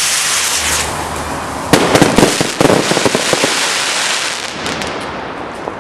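Consumer fireworks going off: a rising hiss, then a cluster of sharp bangs about two seconds in, followed by crackling that thins out and fades.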